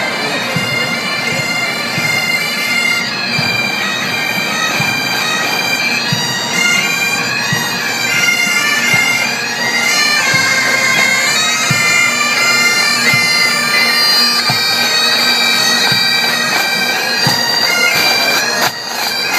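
Pipe band marching past: a massed group of bagpipes playing a tune over their steady drone, with regular drum beats underneath.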